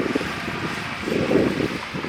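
Bulldozer's diesel engine working, with uneven rumbling swells, the strongest about a second in.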